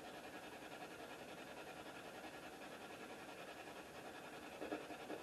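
Faint steady hiss, with one brief, short pitched sound near the end.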